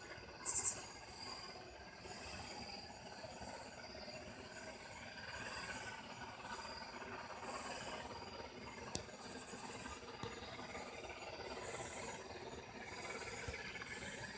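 Night insects calling in short, high-pitched buzzing bursts repeated about every two seconds, over a faint steady hiss, with one brief click near the middle.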